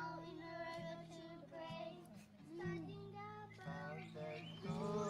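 A young girl singing with acoustic guitar accompaniment, heard as the sound of a recorded video played back over a screen share.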